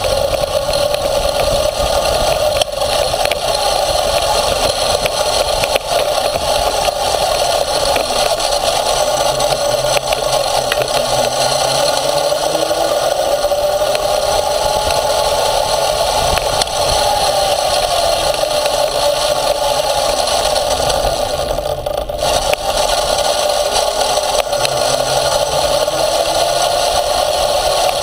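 Motor of a small off-road ride-on running under way, its pitch rising and falling as it speeds up and slows, over a steady rattling and scraping as the ride crosses rough dirt and grass.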